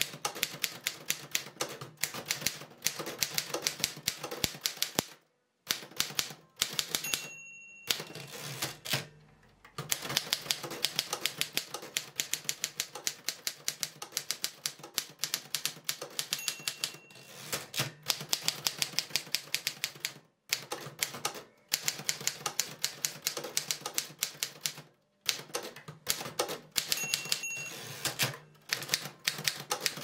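1956 Torpedo 18B manual typewriter being typed on at a brisk pace: fast runs of sharp type-bar strikes, broken by brief pauses. A short bell ring sounds three times, the margin bell warning that the end of a line is near.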